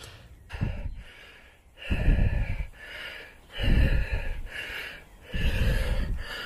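A person breathing hard close to the microphone: four heavy exhales about every 1.7 seconds, the last three loudest, each with a low buffeting rumble.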